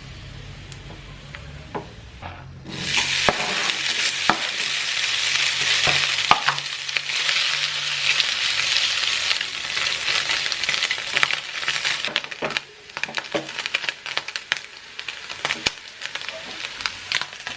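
Food sizzling in hot oil in a pan, starting suddenly about three seconds in with a dense crackling hiss. After about twelve seconds it eases into scattered pops and crackles.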